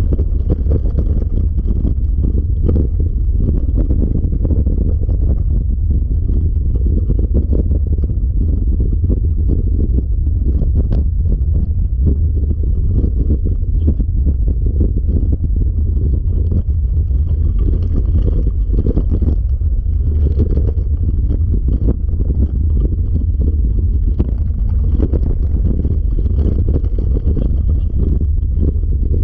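Steady low rumbling of wind buffeting the microphone, mixed with the rattle of a dog-drawn dryland rig's wheels rolling along a dirt trail.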